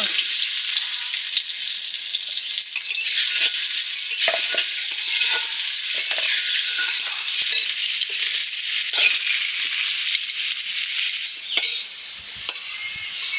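Food frying in hot oil in a pan, sizzling steadily while it is stirred, with short scrapes of the stirring spoon; the sizzle eases off about eleven seconds in.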